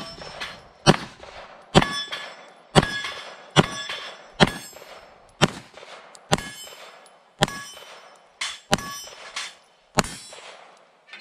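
Canik TP9SFx 9mm pistol firing about a dozen shots, roughly one a second, with each shot followed by the clang of a steel plate target ringing.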